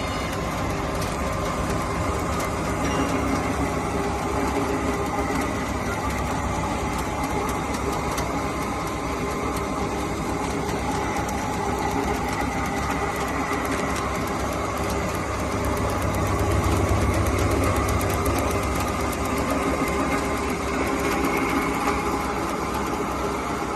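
Crusher, screen and conveyor machinery running steadily: a continuous engine-like drone with dense, fine rattling. A little louder, with a deeper hum, about sixteen seconds in.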